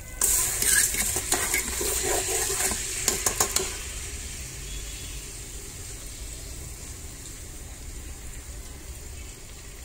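Soaked rice spooned into hot beef fat in an electric rice cooker pot, which sets off a sudden loud sizzle. A few sharp clicks of a metal spoon on the pot come about three seconds in, then the oil settles into a steadier, quieter sizzle.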